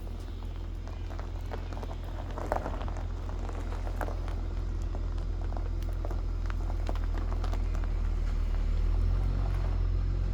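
Holden VY Commodore engine running, a steady low hum that gradually grows louder, with a few light clicks and knocks over it.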